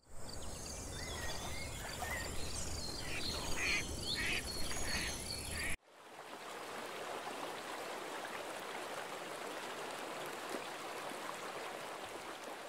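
Chirping animal calls over a high insect-like trill and a low rumble, cut off abruptly about six seconds in by the steady rush of water over river rapids.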